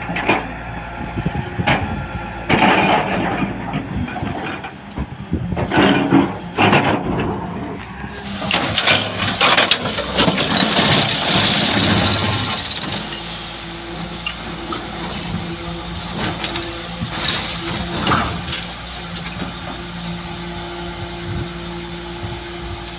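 Excavator working: its engine runs steadily while loud clanks and scrapes come in clusters through the first half, and a strong hiss swells about ten to thirteen seconds in.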